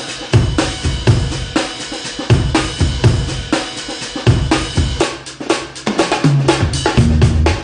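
Music track driven by a drum kit playing a steady beat of kick, snare and cymbals. Near the end the hits come faster in a fill, and a bass line comes in.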